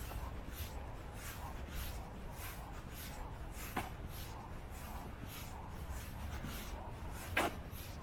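Footsteps of someone walking, about two steps a second, with a sharp click about four seconds in and a louder one near the end.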